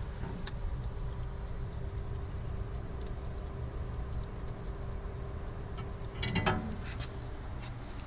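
Hoshizaki RFT-120PTC undercounter refrigerator-freezer running, a steady low hum with a faint higher steady tone above it that stops about seven seconds in. A few light clicks, and one brief louder sound about six seconds in.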